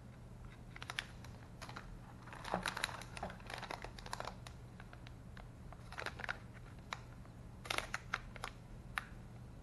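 Plastic bag crinkling in irregular bursts as it is handled and turned over in the hands, the busiest stretches about two and a half to four seconds in and again near eight seconds in.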